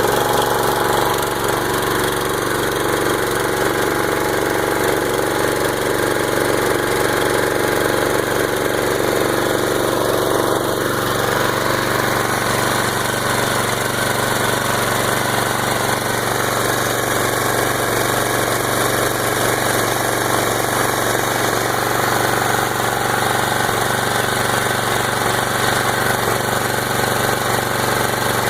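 Gasoline pressure washer's small engine running steadily, just started and still cold.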